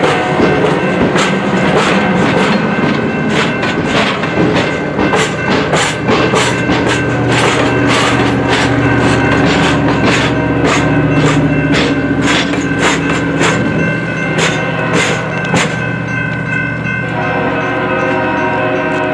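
Stainless-steel passenger cars of the BNSF Office Car Special rolling past, their wheels clicking over rail joints in a quick, uneven series. Near the end the clicking dies away and a steady train horn chord sounds.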